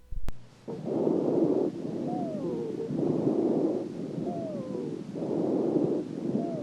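Auscultated lung sounds during an asthma attack: three breath cycles, each breath out carrying a thin musical wheeze that glides downward in pitch, the sign of narrowed small bronchi.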